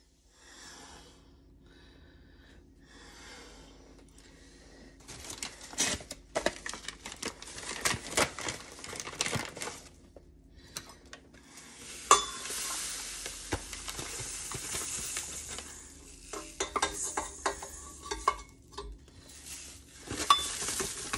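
Metal measuring cup and mixing bowl clinking and scraping as dry ingredients are measured out at a kitchen counter. There are many short clicks and stretches of hissing rustle, the longest from about 12 to 16 seconds in.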